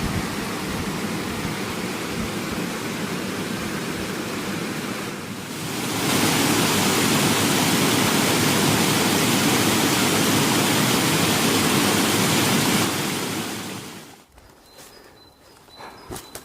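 Steady rushing wind, growing stronger about six seconds in and then dropping away abruptly near the end, leaving a few faint ticks.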